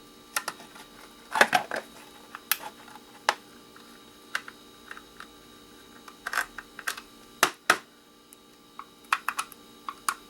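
Irregular clicks, taps and knocks of a small electronic device's hard plastic housing and circuit board being handled and pried at during disassembly, a few louder knocks among lighter ticks.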